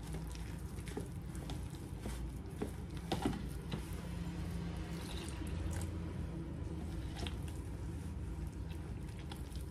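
Hands kneading and squishing damp corn masa dough in a glass baking dish, with small clicks and scrapes. About four seconds in, water is poured in from a plastic pitcher. A low steady hum runs underneath.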